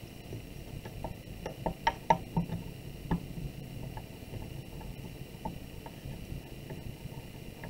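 Wooden dowel rolling out a slab of clay on a wooden board: a scatter of light taps and knocks, busiest in the first three seconds and sparser after.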